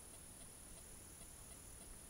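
Near silence: recording hiss with a faint, steady high whine and soft, even ticks about twice a second.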